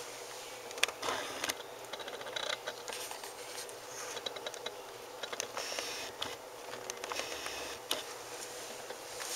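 Scottish terrier puppies shifting about on a fleece blanket close to the camera: soft rustling with scattered small clicks and taps, over a faint steady hum.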